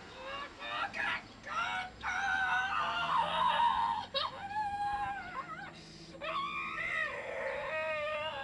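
A young boy's wordless wailing and whimpering cries, the pitch wavering up and down, in two long stretches, loudest a few seconds in.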